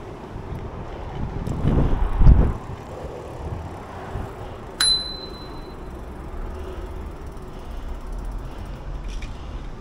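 A bicycle bell rung once about five seconds in: a single ding that fades within a second. Gusts of wind on the microphone, loudest about two seconds in.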